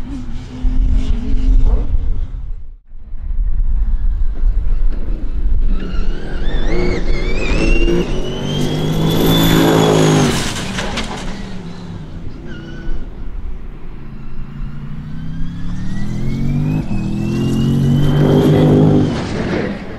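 Racing car engines at full throttle. After a heavy low rumble and a short break about three seconds in, a high-revving engine note climbs to a peak near the middle and drops away, then climbs again toward the end, as cars accelerate hard and pass.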